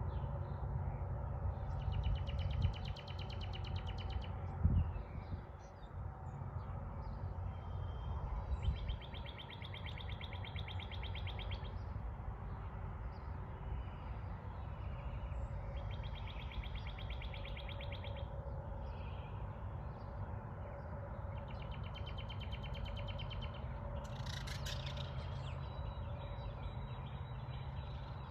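A songbird singing a rapid trill about two seconds long, repeated every five or six seconds, over a steady low rumble, with a short thump about five seconds in.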